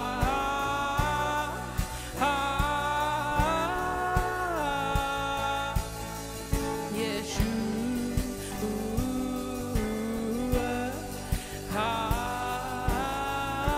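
A live worship band playing a slow song: a woman sings held phrases over acoustic guitar, keyboard, bass guitar and a drum kit keeping a steady beat.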